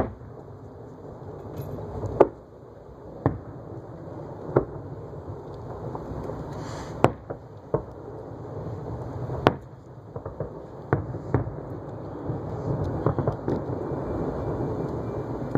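Aerial fireworks shells bursting: a sharp bang every one to two seconds over a steady background noise.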